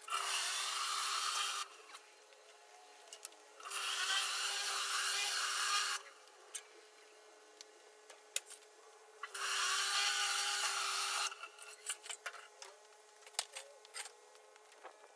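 Pressure-washer water spraying in three bursts of about two seconds each, a steady hum under each burst, then scattered light ticks near the end.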